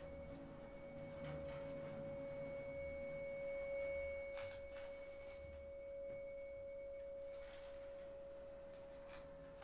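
Bowed vibraphone bar sounding one long, steady, pure tone, with a faint higher overtone that fades out about three-quarters of the way through. A few soft clicks.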